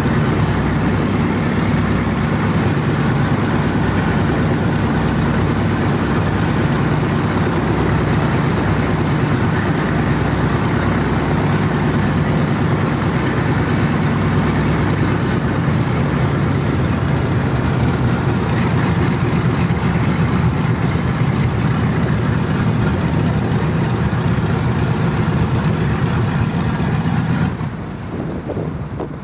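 Boeing B-29 Superfortress's Wright R-3350 eighteen-cylinder radial engines running steadily at idle. About two seconds before the end the sound drops suddenly as an engine is shut down.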